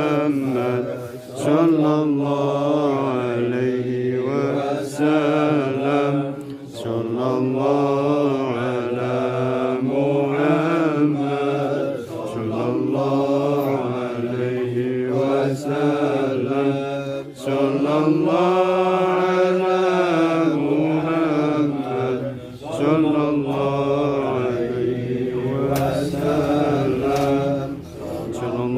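Voices chanting an Arabic devotional song (sholawat) in long, drawn-out, wavering notes, pausing for breath about every five seconds.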